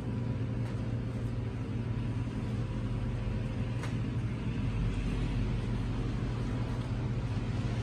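Steady low background hum, even throughout, with one faint click about four seconds in.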